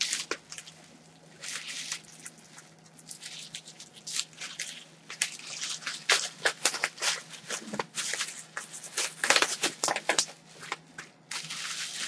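Plastic packaging and bubble wrap being handled, crinkled and torn open by hand: a run of crackles and rustles, busiest in the second half.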